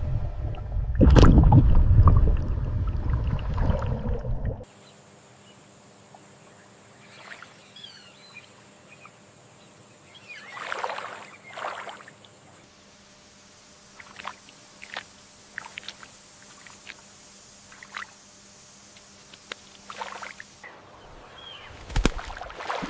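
Water sounds: loud, low sloshing and splashing that cuts off abruptly about four and a half seconds in, followed by faint ambience with scattered small splashes and clicks, and a louder splash near the end.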